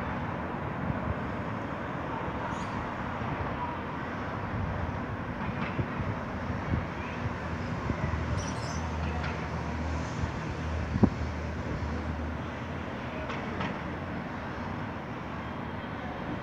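Cycling-race team cars, spare bikes on their roof racks, passing along the road one after another: a steady wash of engine and tyre noise with a low drone swelling near the middle. A single sharp click about two-thirds of the way through is the loudest sound.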